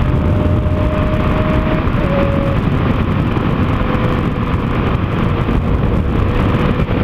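Yamaha XT 660's single-cylinder engine running steadily at road speed, mixed with heavy wind rush on the microphone.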